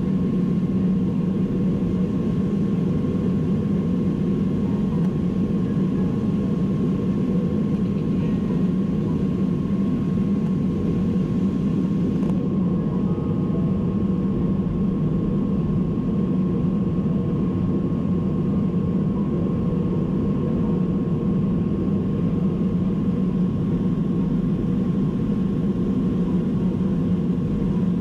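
Jet airliner cabin noise heard from a window seat: a steady rumble of engines and airflow, with a faint steady tone above it. The upper hiss drops away about halfway through.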